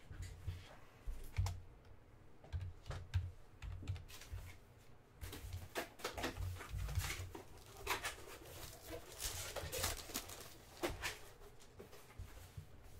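Foil trading-card packs being handled and opened: a run of crinkles and sharp clicks, with dull knocks of hands and packs against the table.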